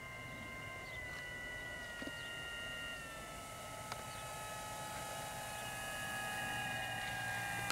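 Electric motor and propeller of a large RC T-28 Trojan model plane whining on landing approach: a few steady high tones that step down in pitch as the throttle is eased back, growing louder as the plane comes in low.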